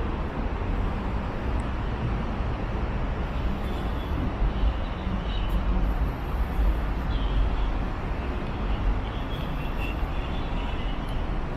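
Steady city traffic noise from a nearby road, with a heavy low rumble.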